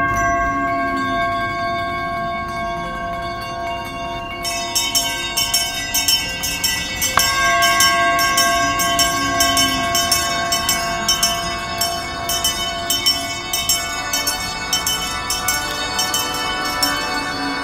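A large engraved singing bowl struck with a mallet, ringing out in long sustained tones, struck again about seven seconds in. From about four seconds in, many hand bells ring over it, shaken rapidly and overlapping.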